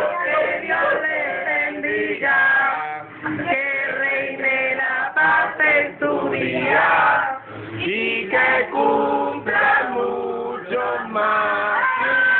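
A group of men and women singing a birthday song together around the lit birthday cake.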